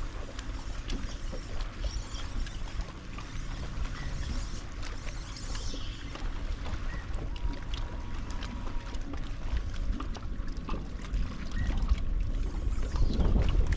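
Wind buffeting the microphone and water lapping against a bass boat's hull, a steady low rumble that grows louder near the end.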